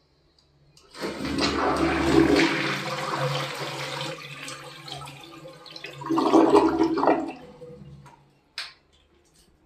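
White HEM one-piece ceramic toilet flushed from its dual-flush push button. A sudden rush of water comes into the bowl about a second in, eases off, then surges again around six seconds in and tails away as the bowl drains.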